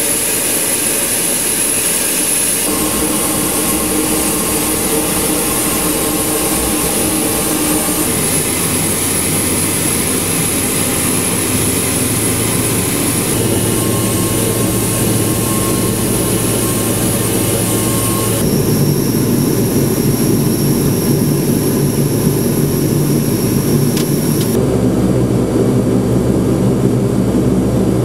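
Four Allison T56 turboprop engines of a C-130H Hercules running steadily, a loud droning hum with a high whine on top. The tone and pitch mix shift abruptly several times.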